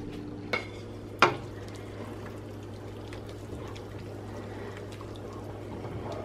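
Wooden spoon stirring spinach into a pot of creamy chicken soup, the liquid sloshing. Two sharp knocks come about half a second and just over a second in, the second louder.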